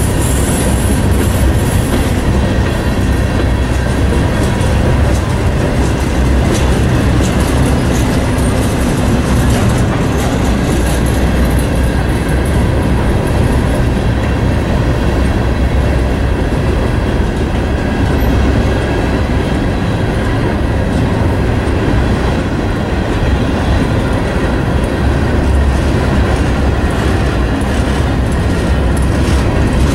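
Herzog ballast train's steel hopper cars rolling past at close range: a steady, loud rumble of wheels on rail, with faint repeated wheel clicks.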